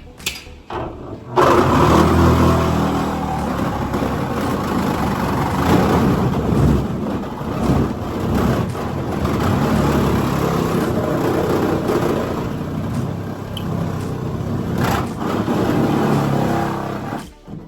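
Handheld power tool running hard under load while cutting up a boat during demolition. It starts about a second and a half in and cuts off just before the end.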